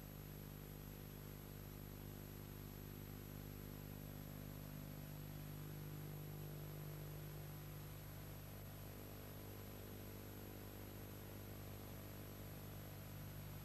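Faint, steady electrical mains hum with a layer of hiss: the background noise of an old tape transfer once the soundtrack has ended.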